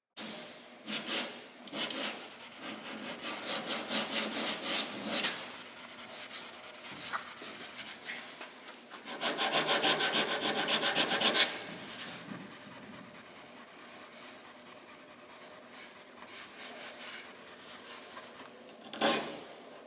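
Repeated rubbing strokes on a hard surface, with a faster, louder run of strokes about halfway through.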